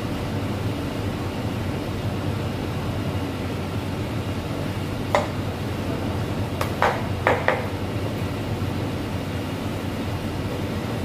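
Steady rushing background noise of a commercial kitchen, with four sharp clinks of pots and dishes: one about five seconds in, then three in quick succession around seven seconds.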